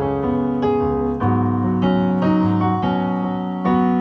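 Electronic keyboard with an electric-piano sound playing an instrumental passage of a cumbia song: held chords that change about once a second over a low bass line, with no singing.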